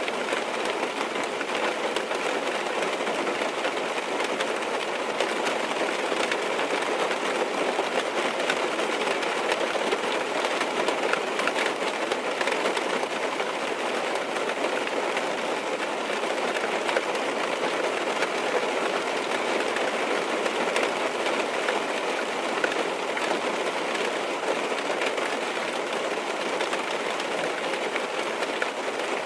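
Rain falling on a car's roof and glass, heard from inside the cabin: a steady, dense hiss with many fine drop ticks over it.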